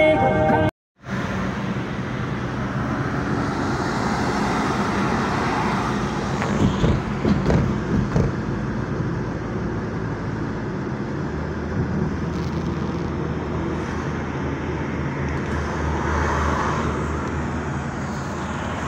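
Steady road noise inside a car driving on a highway: tyre and wind noise, with a deeper engine hum coming in about halfway through.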